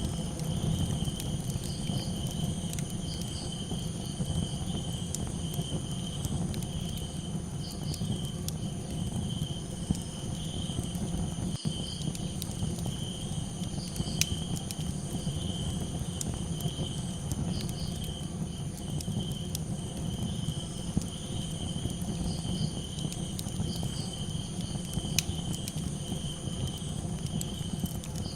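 Crickets chirping in a steady pulsing chorus over a crackling campfire, with scattered sharp pops and a steady low rumble beneath.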